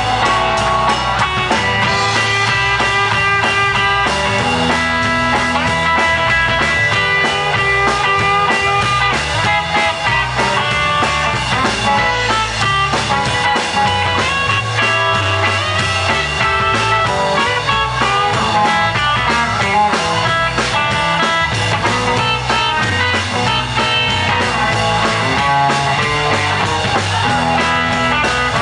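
Live electric blues band playing an instrumental passage: electric guitar, bass and drums, with an amplified blues harmonica playing long held, bending notes.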